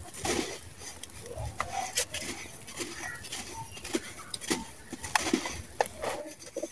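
Dry sand-cement crunching and pattering as hands sift and squeeze it in a plastic tub, with scattered sharp crackles as gritty lumps crumble apart.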